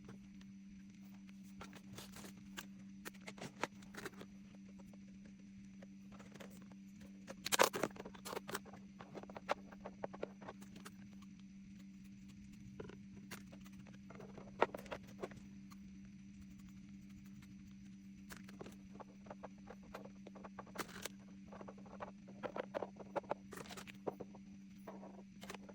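Small irregular taps, clicks and rustles of objects being handled and set down on a vanity table, over a steady low hum. The loudest cluster of taps comes about a third of the way in.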